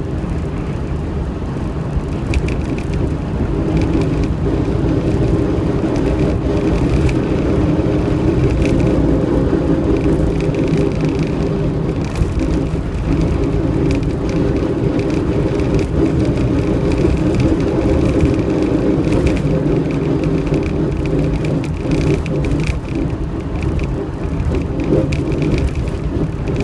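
Land Rover Defender 90 on the move: a steady drone with a high whine that comes and goes. This is the strange noise the owner is chasing, which still sounds when the vehicle freewheels downhill.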